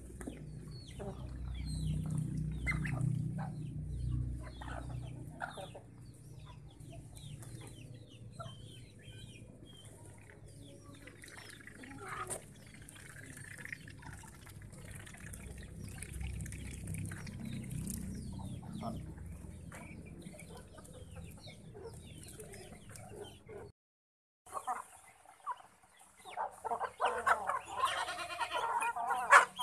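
A flock of chickens clucking while they feed, with many short calls overlapping and the clucking growing denser and louder near the end.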